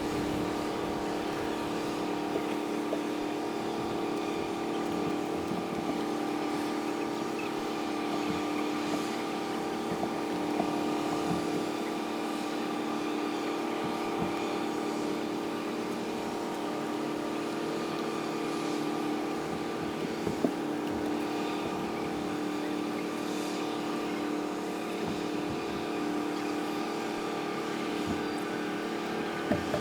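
Harbour engine noise sped up five times: a steady multi-toned motor hum with a few faint knocks.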